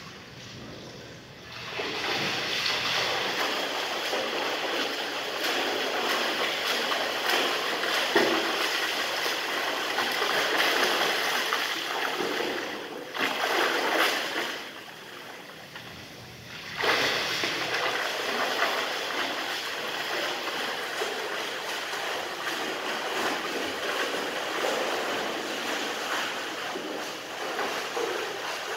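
A swimmer's arm strokes and flutter kicks splashing and churning the water in a pool. The splashing fades for about two seconds a little past the middle, then starts again abruptly.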